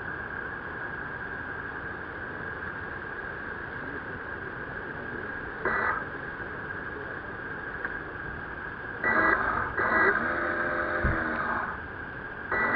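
Steady hiss of water and wind rushing past a 1m-class radio-controlled sailboat, picked up by a small onboard camera, with a constant high tone throughout. There is a short louder whirring burst about six seconds in, and a longer stretch of whirring with wavering pitch from about nine seconds to near the end.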